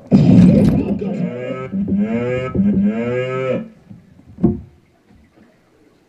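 Cow moo sound effect from an electronic keyboard, one long moo lasting about three and a half seconds. A short sharp note follows about four and a half seconds in.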